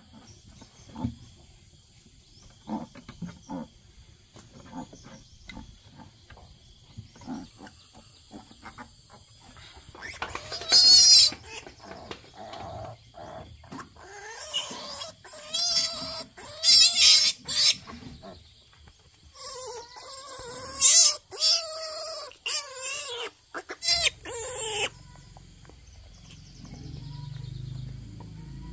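Young piglet squealing loudly while held for bottle-feeding, in repeated calls that waver in pitch, over about fifteen seconds from roughly a third of the way in. Before that come a few short, soft grunts, and a steady high-pitched drone runs behind.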